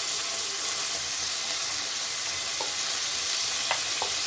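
Cauliflower florets sizzling steadily as they fry in hot oil in a pan, with a few faint clicks in the second half.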